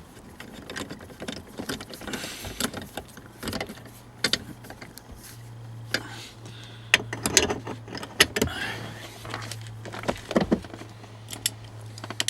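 Light metallic clinks, taps and rattles of 18 mm nuts and small hardware being handled and threaded by hand onto studs, with a steady low hum underneath from about four seconds in.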